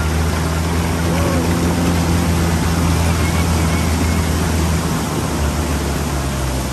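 Open-top jeep driving through a shallow river: its engine runs steadily under a continuous rushing hiss of water splashing and spraying off the wheels and body.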